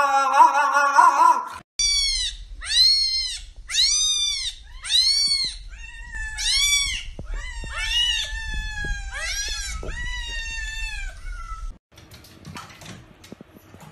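A cat meowing over and over, about a dozen high calls that rise and fall, the later ones longer and flatter, over a low steady hum. Before them a French bulldog vocalises briefly, and near the end there is faint splashing of water.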